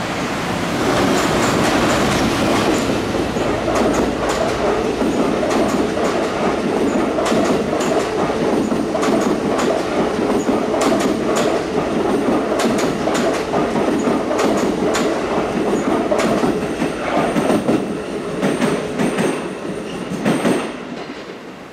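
Train made up of an EF210 electric locomotive hauling new Sagami Railway 21000-series EMU cars, passing close by with a steady rumble and many sharp wheel clicks over rail joints. The noise drops away sharply near the end as the train goes by.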